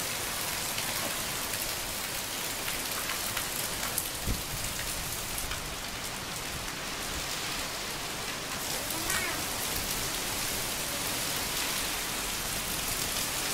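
Heavy rain pouring down onto a wet paved street and trees, a dense, steady hiss of drops splashing on the pavement and puddles.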